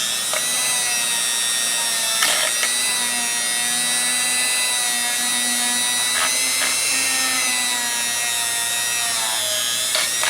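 Dremel rotary tool running with a steady high-pitched whine while it cleans rust and pitting off steel linesman's pliers. A few brief scratchy touches come as the bit meets the metal, and the pitch sags briefly near the end.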